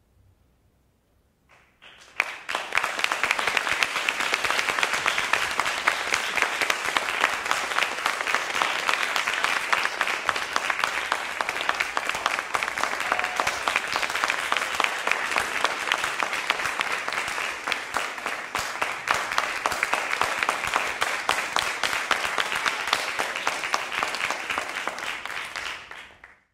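Audience applauding after near silence: the clapping starts about two seconds in, holds steady and fades out at the very end.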